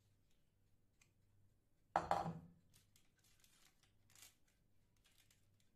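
A scoop of cookie dough being released onto parchment paper: a short scrape and paper rustle about two seconds in, then a few faint light ticks.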